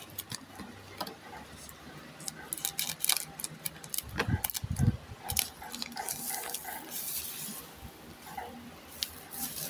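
Foil One Piece trading card booster pack and cards handled by hand, crinkling and clicking in quick irregular bursts, with a couple of dull thumps about four to five seconds in.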